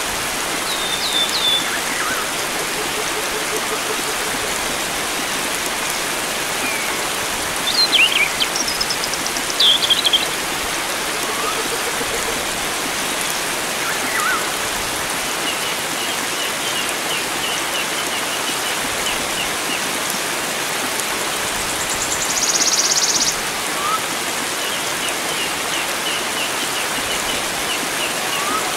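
Steady rush of running water with wild birds calling over it now and then: short chirps and whistles, two louder calls about eight and ten seconds in, a rapid trill that comes twice, and a brief buzzy call past the middle.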